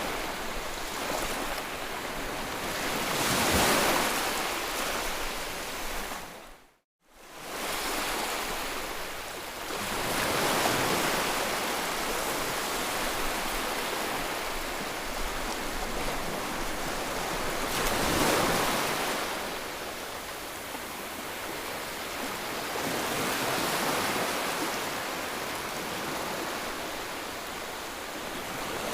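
White noise, a steady hiss spread from low to high that swells and eases every several seconds like surf. It drops out to silence for a moment about seven seconds in.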